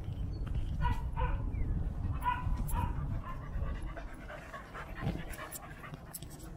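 Australian shepherd dogs giving a few short, high whines and yips, about a second in and again around two and a half seconds, with panting and scattered clicks, as the pack crowds round and sniffs a new puppy.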